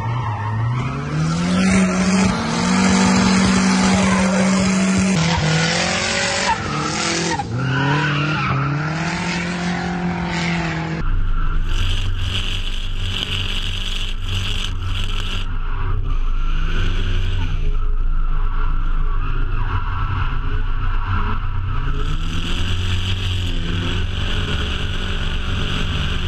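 Turbocharged single-cam Nissan 240SX (S13) drift car sliding, its engine revving up and down and held flat at the top of its revs for a few seconds, with tyre squeal. About eleven seconds in the sound cuts to a second run with a steadier engine note over a low rumble.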